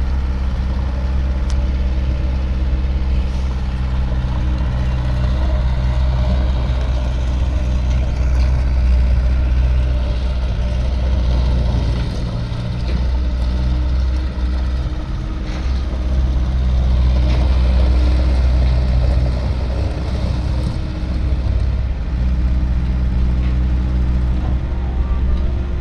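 Bobcat S130 skid steer loader's engine running, a steady low drone with a few clicks and knocks over it.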